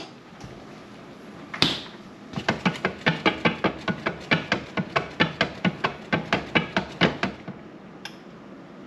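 Stainless steel stockpot and its lid clattering on a glass-top electric stove: one sharp knock, then a fast, even run of metal knocks, about six a second, for about five seconds before stopping.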